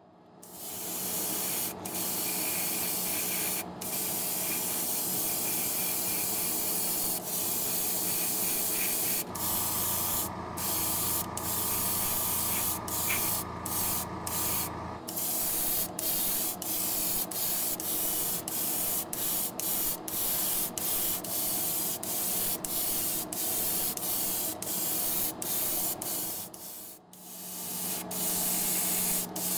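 Airbrush spraying paint in short bursts: a hiss that cuts off and restarts many times as the trigger is let go and pulled again. A steady low hum runs underneath, and a second, deeper hum joins for several seconds in the middle.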